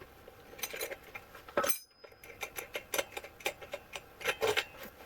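Small metal tools and bike parts clinking and clicking as they are handled, a string of short sharp clicks with one louder knock a little under two seconds in.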